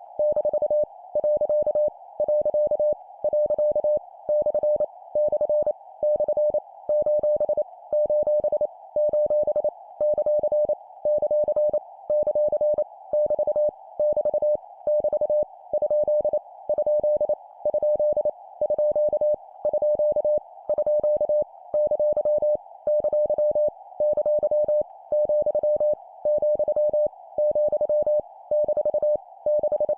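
Morse code (CW) practice tone at 25 words per minute: a single steady beep keyed in fast dots and dashes, in character groups about a second apart, sending punctuation marks, each repeated three times. A constant band of hiss like receiver noise runs underneath.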